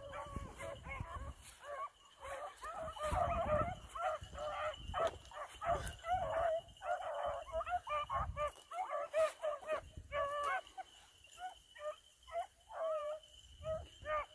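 A pack of about a dozen beagles baying together while running a rabbit: many overlapping, wavering cries and yelps that keep breaking off and starting again.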